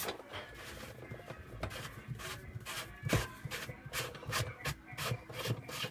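A plastic cap inside a Jenn-Air DW730B dishwasher tub being twisted and worked off by hand: irregular light clicks, knocks and plastic rubbing.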